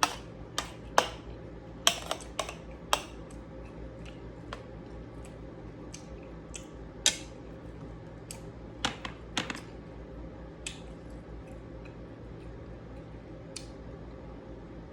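Eating sounds from a meal: irregular sharp clicks and clinks, most of them in the first three seconds and a few more later, over a steady low hum.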